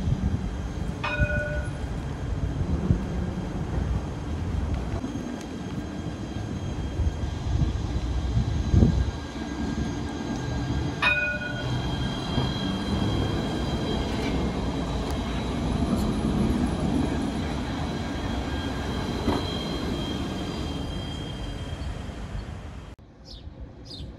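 Alstom Citadis 302 tram passing close by on street track: a steady low running rumble with a faint high whine. Two short ringing dings come about a second in and about eleven seconds in. Near the end the sound drops abruptly to a quieter scene with a few high chirps.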